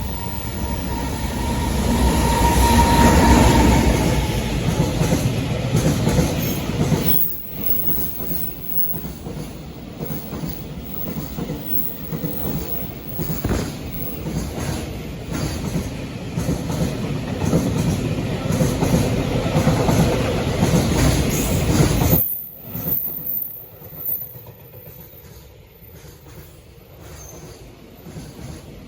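Freight train passing close by, wheels clattering over rail joints in an even rhythm, with a high steady squeal in the first few seconds. The noise drops away sharply about 22 seconds in, leaving a fainter rumble.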